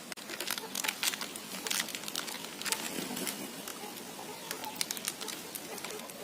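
A crested chicken being held and handled, with scattered irregular clicks and rustling of feathers and hands.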